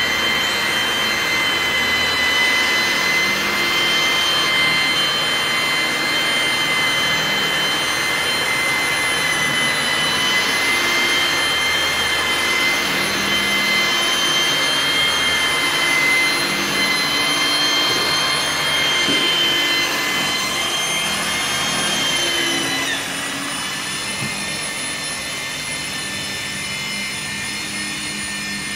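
Handheld electric polisher running with a steady whine while its round pad buffs a glass pane to remove stains and scratches. About three quarters of the way through the whine drops away and a quieter steady noise remains.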